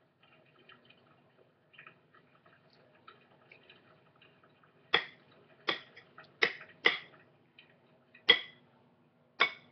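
A spoon scraping and tapping against a container as peanut butter is scooped out for the dough. There is faint scraping at first, then six sharp taps over the second half.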